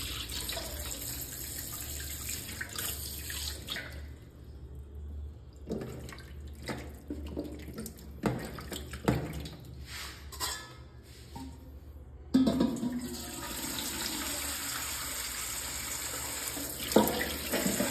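Tap water running into a steel bowl of cut rohu fish in a stainless steel sink as the pieces are rinsed and rubbed by hand. The steady flow drops away about four seconds in, leaving separate splashes and knocks of fish against the bowl, and runs steadily again about twelve seconds in.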